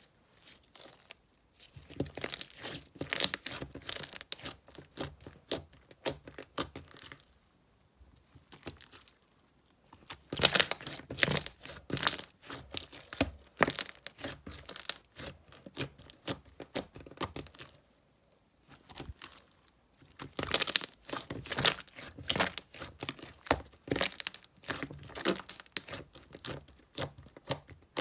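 Slime being squeezed, stretched and pressed by hand, giving dense crackling, popping and sticky tearing sounds in three spells separated by short pauses.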